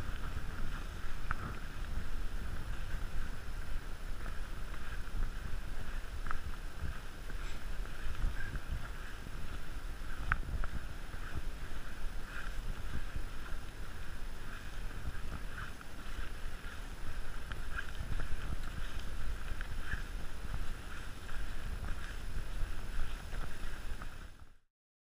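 Wind rumbling on an outdoor camera microphone over a steady high hiss, with a few faint clicks; it fades out quickly near the end.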